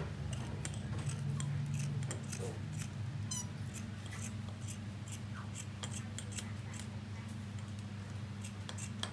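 Large scissors snipping through knit fabric, a run of short, crisp cuts at an uneven pace, over a steady low hum.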